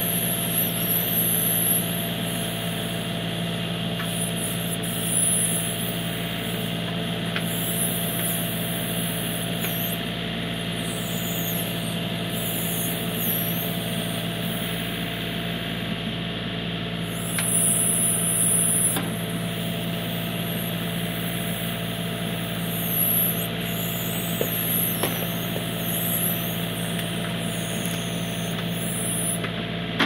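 John Deere 3032E compact tractor's three-cylinder diesel engine running steadily, with a few brief swells in level as the 370B backhoe works.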